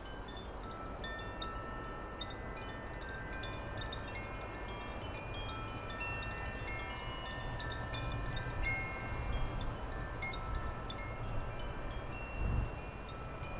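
Wind chimes ringing at many overlapping pitches over a low rumble of wind on the microphone, with a brief low thump near the end.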